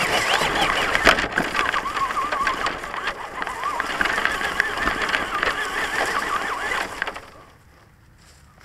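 Traxxas Stampede RC monster truck's electric motor whining, its pitch wavering up and down with the throttle, over the knocks and rustle of the truck driving through grass. It stops about seven seconds in.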